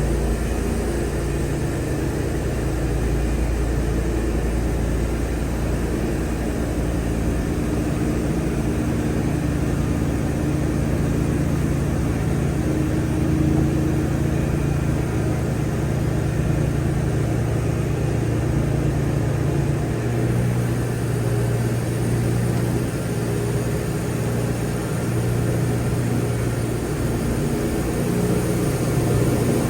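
Wood-Mizer LT40 portable band sawmill running steadily under power; its engine note drops lower about two-thirds of the way through.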